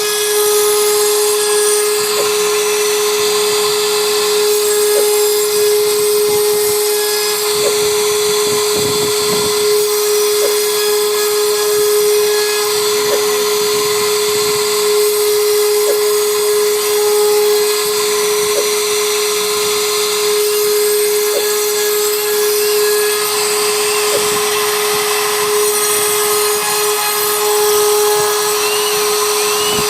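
CNC router spindle running with a steady high whine as it cuts wood, with a faint regular tick about every three seconds.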